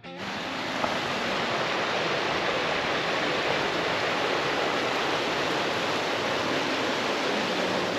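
Rushing stream water: a steady, even rush.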